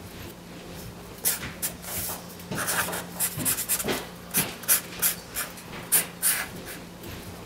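Felt-tip marker drawing on paper: a run of quick, irregular scratching strokes starting about a second in.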